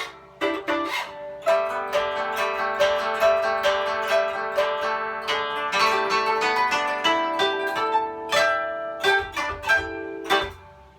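Koto (Japanese zither) played: a quick run of plucked notes, then a few separate, stronger plucks near the end that ring out and fade away.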